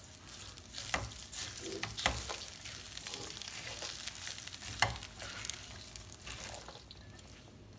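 Silicone spatula stirring roasted grated coconut into a thick vegetable and chana dal curry in a stainless steel pot: faint, uneven scraping and rustling, with a few sharper knocks of the spatula on the pot, the loudest about five seconds in.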